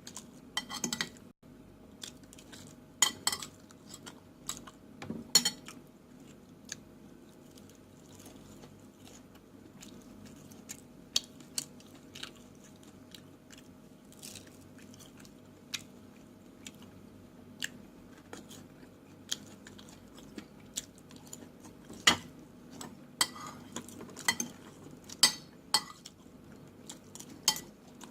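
Close-miked eating: chewing with wet mouth clicks, and cutlery tapping and scraping on a plate now and then. The sharp clicks come scattered, loudest about a second in, around three and five seconds in, and in a busier run near the end, over a faint steady hum.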